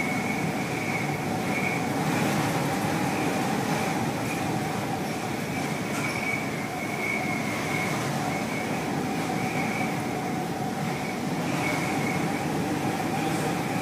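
Steady rumbling noise with two thin, wavering whistling tones that swell and fade every second or so: storm wind and ship noise heard on a container ship's bridge in heavy seas.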